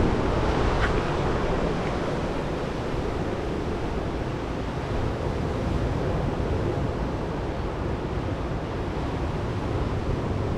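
Waves breaking on a beach: a steady rush of surf, with wind rumbling on the microphone.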